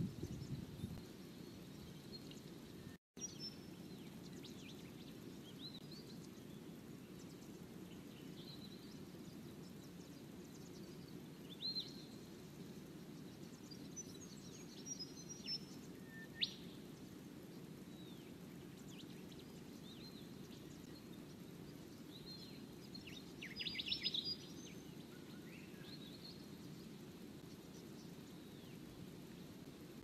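Small birds giving short, high chirps and calls here and there, with a denser burst of calls about 24 s in, over a steady low background rumble. The sound drops out for an instant about 3 s in.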